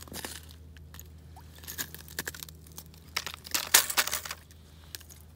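Irregular crunching and rustling as a tip-up line is hand-pulled up through a hole in the ice: close handling noise from hands, clothing and the icy surface, loudest about three and a half to four seconds in.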